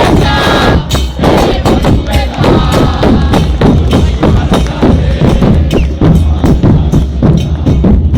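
Football supporters' drum band playing a fast, driving rhythm: bass drums (bombos) and cymbals (platillos) with repique drums, loud and unbroken.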